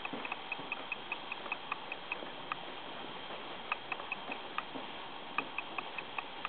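Light mechanical ticking, about five quick ticks a second in runs that stop and start, over a steady hiss.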